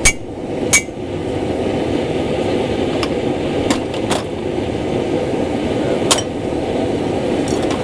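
Hammer blows on a nail used as a punch, driven into hot mild steel: about seven sharp, ringing metal strikes at uneven intervals. The running forge makes a steady rushing noise under them.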